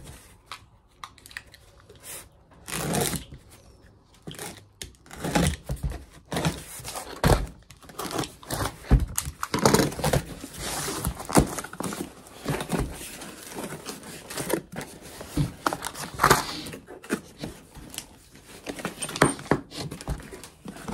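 Cardboard box being worked open and unpacked by hand: irregular tearing, scraping and rustling of cardboard, with occasional thunks against the wooden tabletop.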